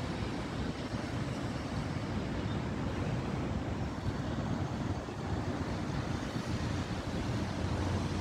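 Steady low rumble mixed with wind buffeting the microphone, without a clear start, stop or rhythm.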